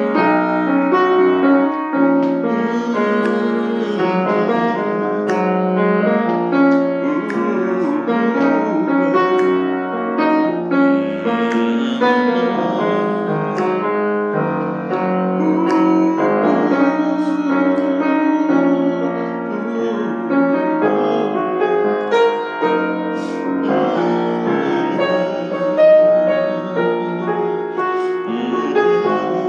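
Piano playing an instrumental break in a slow song, chords and melody with no singing.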